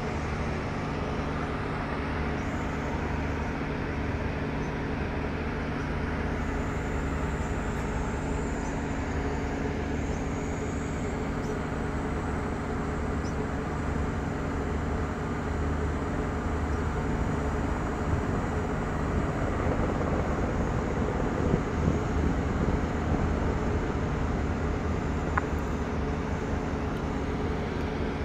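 Boat engine running steadily, a low even drone. A rougher rushing noise joins about two-thirds of the way through and makes it louder for a few seconds.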